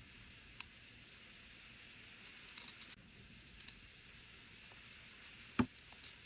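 Small tools working on a watch at a repair bench: a few faint light clicks, then one sharper tap about five and a half seconds in, over a steady hiss.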